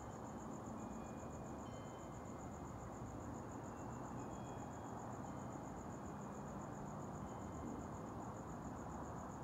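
A cricket calling at night: a steady, high-pitched, rapid and even pulsing, over a low background hiss, with a few short faint higher notes now and then.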